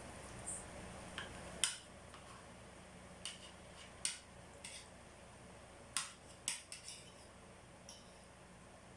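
Cutlery clinking and scraping against a dish while eating baked spaghetti: about ten light, irregular clicks, with a small cluster about six to seven seconds in.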